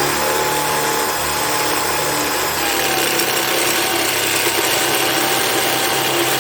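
Hand drill with a 1/2 inch bit boring through a pilot hole in a squashed dome strut, running steadily under load with a held whine that shifts slightly in pitch partway through.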